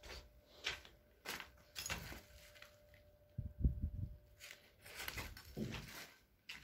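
Irregular footsteps and scuffs over a rubble-strewn floor, with a few heavier thumps about halfway through and a faint steady hum for a couple of seconds in the middle.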